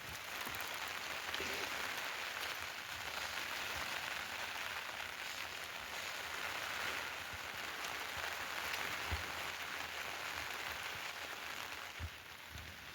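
Steady rain falling, an even hiss that drops a little near the end.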